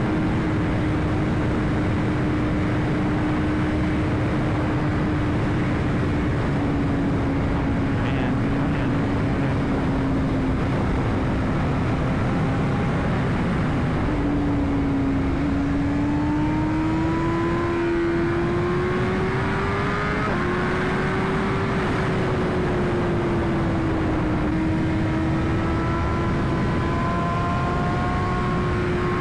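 BMW S1000RR inline-four engine running under way, with heavy wind rush at a helmet chin mic. The engine note sags slowly at first, then climbs in steps through the second half, with sudden drops in pitch at each upshift.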